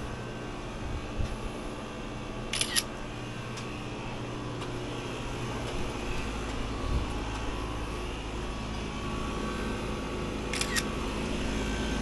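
Phone camera shutter sound, a quick double click, twice: about two and a half seconds in and again near the end. Under it, the steady hum of the air-conditioning condenser units running, stronger in the second half.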